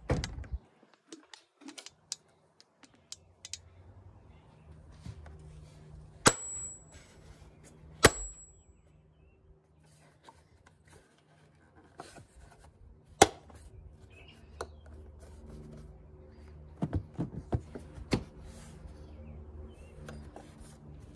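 Sharp clicks of the clips on a car's air filter housing being snapped open by hand, three loud ones several seconds apart, the first two each followed by a short high metallic ring. Softer ticks and rattles of hands on the plastic lid come between them.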